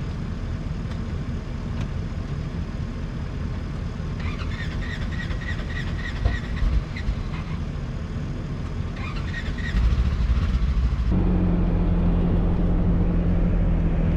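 Idling engine rumble as a Polaris General side-by-side warms up, with a few high chirps in the middle. About eleven seconds in it changes abruptly to the louder, steady drone of the machine driving, heard from inside its cab.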